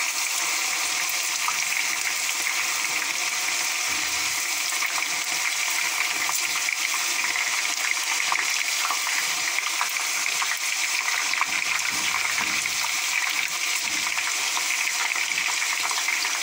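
Soaked chana dal (split chickpeas) deep-frying in hot oil: a steady, vigorous sizzle with fine crackles, the moisture from soaking boiling off in the oil.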